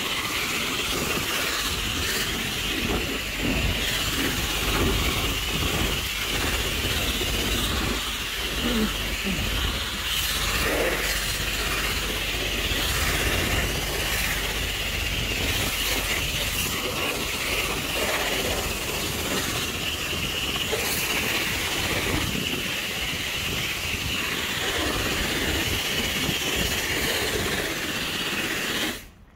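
High-pressure car-wash lance spraying foam and water onto a car's bodywork: a steady spraying hiss that cuts off suddenly near the end.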